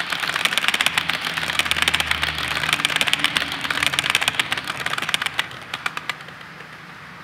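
HO scale model coal hopper cars rolling past on the track, their wheels clicking rapidly over the rail joints. The clatter fades as the last cars go by and dies away about six seconds in.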